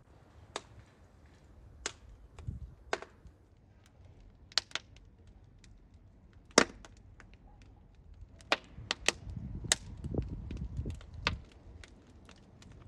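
Wood fire burning in a domed masonry oven: irregular sharp crackles and pops from the burning logs, the loudest about six and a half seconds in, with a low rumble of the flames in the second half.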